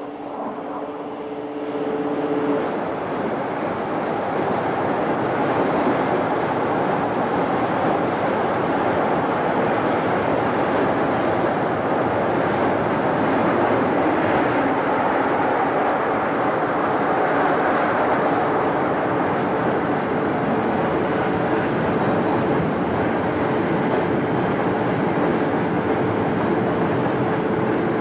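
Class 47 diesel locomotive hauling a loaded granite train past: its engine under power and the wagons' wheels rumbling over the rails. The sound builds over the first few seconds as the train draws near, then holds steady as the wagons roll by.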